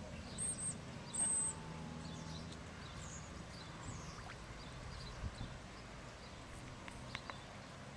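Three short, high-pitched bird chirps in the first second and a half, over a faint steady low hum. A few faint clicks follow later.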